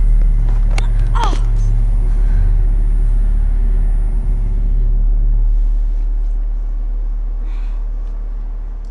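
Deep, loud, low rumble, a film sound-design drone, easing off in the second half. A few sharp clicks and a brief falling cry come in the first second and a half.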